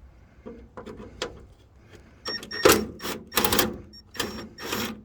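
Hand tool working loose a small metal fastener on a truck's headlight trim: a few light clicks, then from about two seconds in a run of short, scraping metallic bursts with a faint ring.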